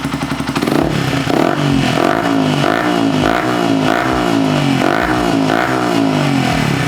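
Yamaha R15S single-cylinder motorcycle engine revved in quick repeated throttle blips, about ten rising swells, through its refitted exhaust. The rider hears a lingering bass note in the exhaust even after tightening the loose header pipe joint.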